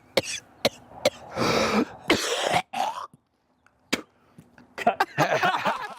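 A person in a coughing fit: sharp single coughs, longer raspy hacking coughs and throat clearing, ending in a voiced, sputtering stretch.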